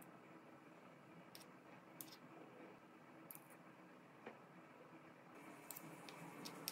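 Near silence with a handful of faint, light clicks: metal spoons tapping together and on the dough as apple filling is spooned onto rings of shortcrust cookie dough.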